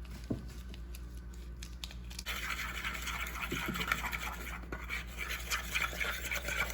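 A utensil scraping and stirring in a bowl, mixing the pancit canton seasoning sauce: a quick, continuous scratchy rubbing that starts about two seconds in.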